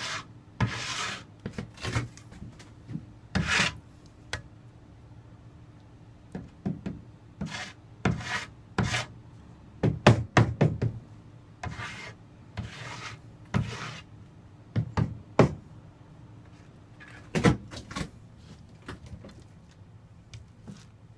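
Notched steel trowel scraping flooring adhesive across an OSB countertop in a series of short strokes with pauses, and scattered sharp knocks, most of them about halfway through.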